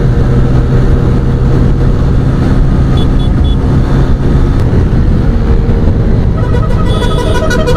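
TVS Raider motorcycle being ridden hard at high speed, its engine drone under a loud steady rush of wind on the phone microphone. About six and a half seconds in, a vehicle horn starts sounding with a pulsing, warbling tone.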